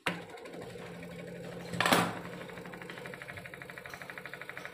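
Kent RO water purifier's booster pump starting and running with a steady hum and a fast, even pulsing, right after its filter-timer reset switch is pressed to clear the timer beep. A brief loud noise about two seconds in.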